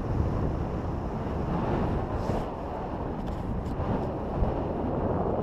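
Wind buffeting the microphone of a GoPro action camera carried on a moving horse: a steady, low rush of noise with no clear rhythm.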